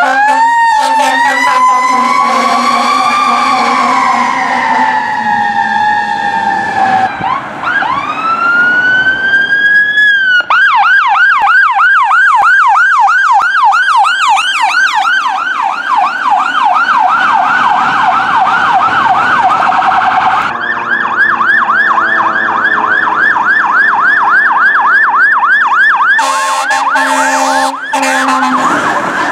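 Emergency vehicle sirens: a slow wail rising and falling, then a rising wind-up into a fast yelp of about four sweeps a second that carries on to the end. Low steady horn blasts sound near the start and again near the end.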